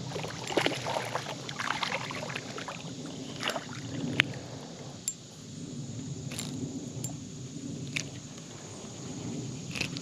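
Water splashing from a hooked bluegill being reeled in and landed, with scattered sharp clicks and knocks from handling the tackle and fish.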